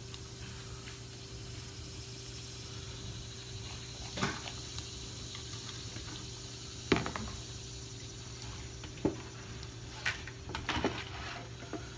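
Hands rubbing and handling a raw, seasoned spatchcocked chicken on a metal sheet pan, with wet handling noises and a few sharp knocks, the loudest about seven seconds in, over a steady low hum.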